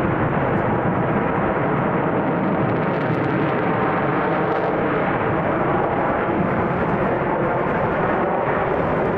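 Twin Pratt & Whitney F119 turbofan engines of an F-22 Raptor in maneuvering flight: a loud, steady jet rush with no letup.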